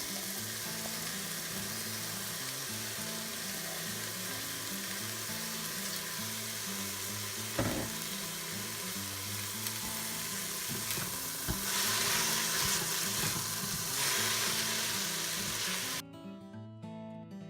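Onions, garlic and bell peppers sizzling in hot oil in an Instant Pot on sauté, with a single knock about halfway and a louder stretch of sizzling a little later. The sizzle cuts off abruptly shortly before the end, leaving soft background music.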